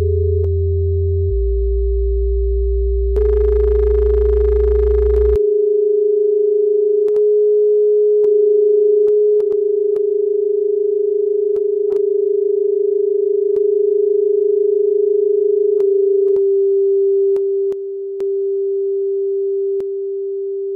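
A steady electronic sine tone held at one pitch, part of an experimental electronic piece. Deep bass tones and a hiss sit under it for the first five seconds, and after that sparse sharp clicks sound over the tone. It drops a little in level near the end and cuts off abruptly.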